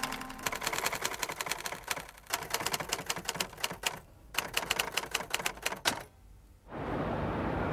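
Typewriter keys clattering in fast runs with short pauses, stopping about six seconds in. Near the end a steady even background noise starts.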